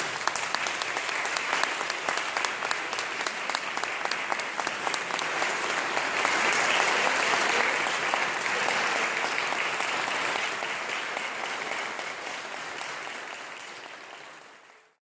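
Audience applauding: many hands clapping, strongest about halfway through, thinning near the end and then cutting off.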